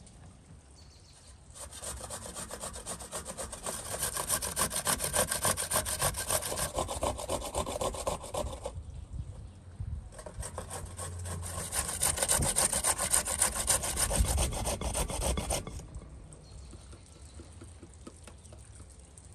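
A carrot being grated on a metal box grater: quick, even rasping strokes in two long bouts with a short pause between them.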